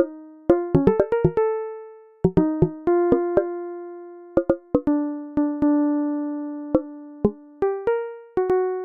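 Background music: a sparse, slow melody of single pitched notes, each starting sharply and fading away, with short clusters of quick notes about a second in and again near the end.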